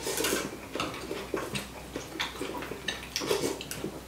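Two people eating chicken pho: noodles slurped and chewed in a run of short, irregular sounds, with light clinks of chopsticks and a spoon against ceramic soup bowls.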